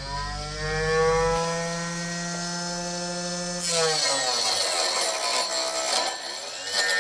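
Homemade table saw driven by a 12-volt 775 DC motor: the free-running blade's whine slowly rises in pitch, then about three and a half seconds in the blade bites into a thin wooden strip, the motor's pitch drops under the load and rasping cutting noise takes over.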